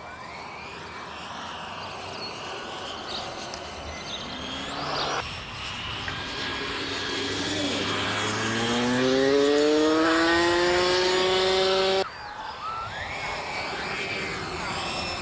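RC model aircraft engine running in flight, getting louder and rising in pitch as the plane comes closer and speeds up, then cutting off abruptly partway through; a quieter pass follows.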